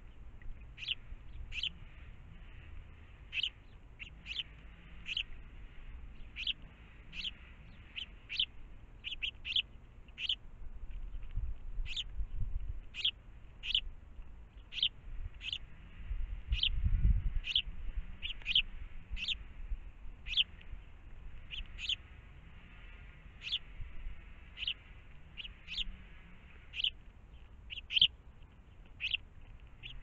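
House sparrows chirping: short, sharp chirps repeated about once or twice a second throughout, the steady calling of a fledgling begging to be fed. A low rumble comes in briefly around the middle.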